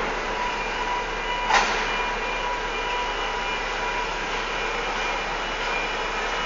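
Steady mechanical noise of container-loading crane machinery, with faint steady whining tones and one short sharp sound about a second and a half in.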